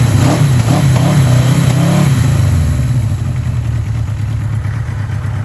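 1982 Suzuki GS850's air-cooled inline-four engine running, its pitch wavering with a few light blips of the throttle in the first two seconds, then settling back and easing off. It is running on freshly refitted carburettors whose fuel tee and pipes were just repaired.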